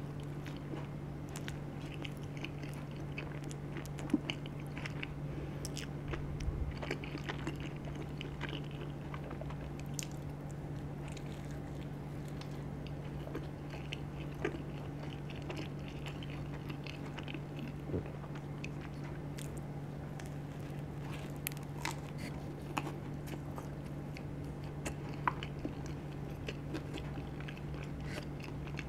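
A person chewing and biting charcoal-dough pizza, with small crisp crunches and wet mouth clicks scattered through. A steady low hum runs underneath.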